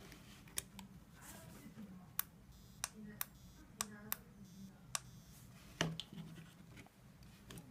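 Faint, sharp plastic clicks, about nine of them at uneven spacing: buttons on a Patpet 008 dog training collar's remote transmitter being pressed while the plastic collar receiver is handled.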